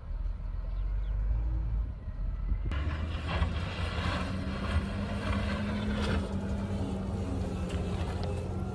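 Heavy diesel engine of earthmoving machinery running: a low, muffled rumble that changes abruptly about three seconds in to a clearer, steady engine hum. There are a couple of metallic clanks mid-way.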